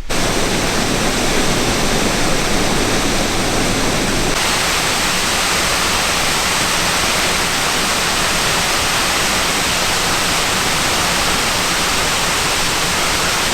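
Steady, even hiss that cuts in abruptly, shifts slightly about four seconds in, then holds flat.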